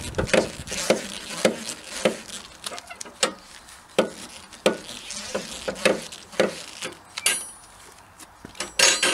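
Car jack being pumped to lift the car: a steady series of metallic clunks and knocks about every half second, with two brief squeaks near the end.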